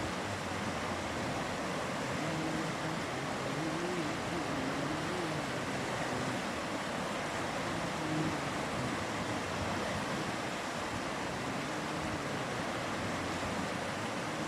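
Mountain river flowing, a steady rushing noise. A faint low hum wavers up and down beneath it.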